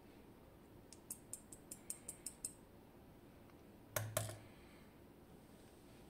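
Small metal lock parts being handled: a run of about eight light clicks over a second and a half as the DOM IX Twido plug and its small steel pins are worked, then two louder knocks close together about four seconds in, as pins and plug come out onto a wooden tray.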